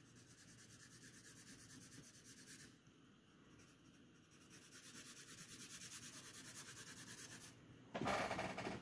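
Graphite pencil shading on drawing paper: quick, even scratchy strokes, about five a second, pausing about three seconds in and starting again. A louder brief rustle near the end.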